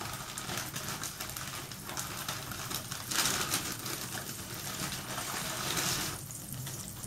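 Food sizzling steadily as it fries in a pan, swelling briefly about three seconds in.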